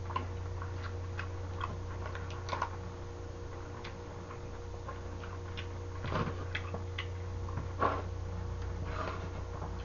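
Steady low electrical hum, with scattered light clicks and short handling noises from wooden chopsticks, a plastic takeaway tray and a beer glass being moved, and a couple of brief louder noises about 6 and 8 seconds in.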